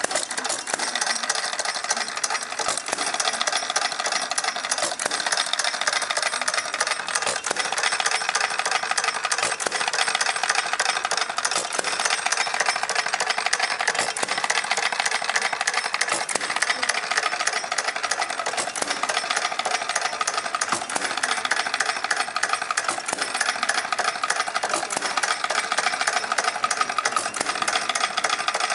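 Model vertical Domestic gas engine running steadily on propane, a fast continuous mechanical clatter.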